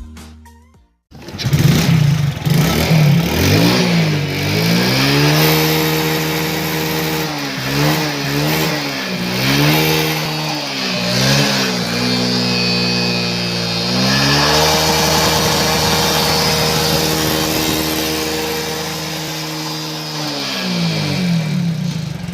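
Hero Super Splendor motorcycle's single-cylinder engine revving through its exhaust silencer. It comes in about a second in, rises, gives several quick throttle blips, is held at high revs for several seconds, then falls back near the end and stops abruptly.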